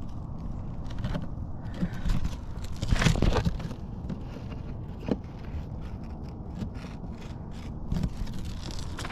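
Scattered scrapes and clicks over a steady low rumble, with a louder scraping burst about three seconds in.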